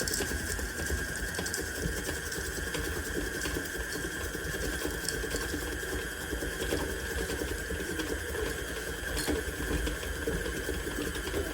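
Electric mixer running steadily in a bowl of cookie dough, a constant motor whine with a few faint clicks.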